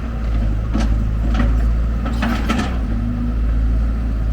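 Heavy diesel construction machinery running steadily with a deep rumble. Four short knocks or scrapes cut through it, the last two close together about two and a half seconds in, as from the bucket and material being handled.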